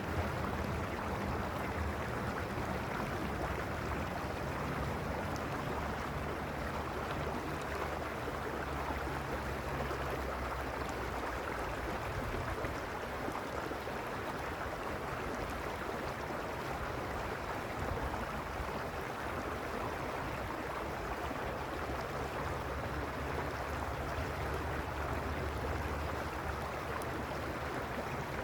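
Mountain stream running, a steady, even rush of water that never lets up, with a low rumble underneath.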